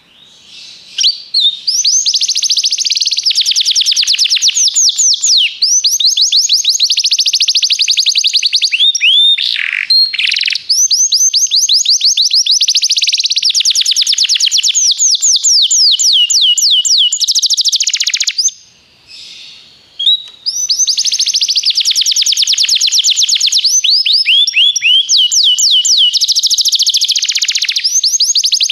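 Domestic canary (Belgian canary) singing: long, loud rolling trills, each a fast run of rapidly repeated high notes, with a brief break about ten seconds in and a longer two-second pause a little past halfway.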